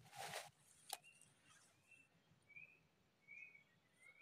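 Faint near-silence with a few short, high bird calls repeating every half second or so. There is a brief rustle at the start and a sharp click about a second in.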